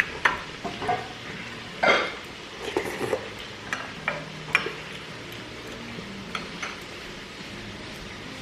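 Spoon and fork clinking and scraping against dishes, a string of sharp knocks over the first few seconds, then quieter.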